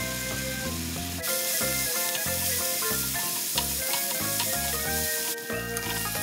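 Chilli, red onion and garlic paste sizzling in a frying pan while being stirred with a spatula, over background music. The sizzle grows louder about a second in and drops back near the end.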